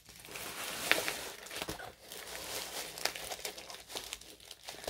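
Plastic bag crinkling and crackling as a rolled diamond-painting canvas is worked into it, with several sharp crackles, the loudest about a second in.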